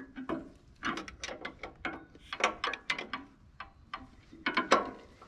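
A wrench being worked on the adjusting bolt of a Wood-Mizer LT40 sawmill's drive band wheel: a run of irregular metallic clicks and clinks, some in quick pairs.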